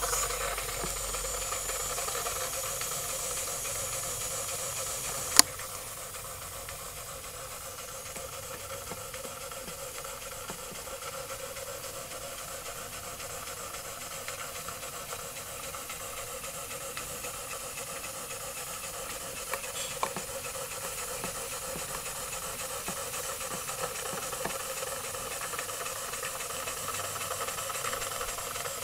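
Jensen model live steam engine with a No. 20 cylinder and 3-inch boiler running under steam: a steady hiss of steam, a little quieter after a single sharp click about five seconds in, with a couple of faint clicks later on.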